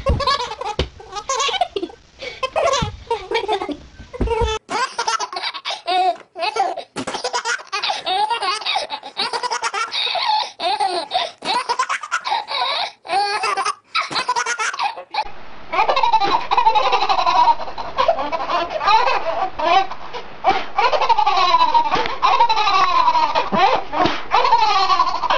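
Babies laughing hard in repeated bursts. The laughter shifts to a different baby about fifteen seconds in.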